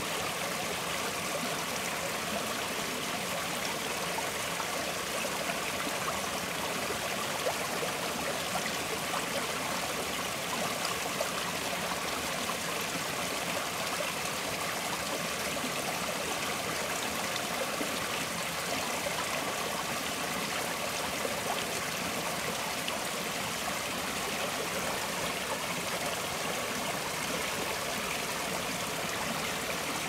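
Gentle forest stream flowing and trickling in a steady, even rush of water, more hiss and splash than low rumble.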